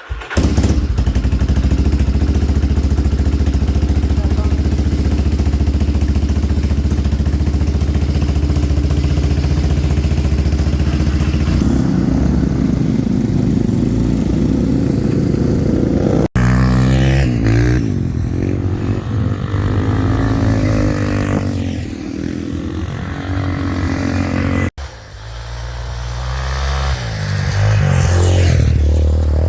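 Yamaha Warrior 350 ATV's single-cylinder four-stroke engine running, steady at first, then revving with pitch rising and falling. The sound cuts off abruptly twice.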